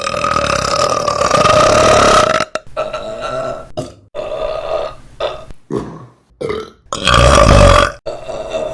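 A series of women's burps. A long, drawn-out burp ends about two and a half seconds in, then several shorter burps follow, the loudest about a second long near the end.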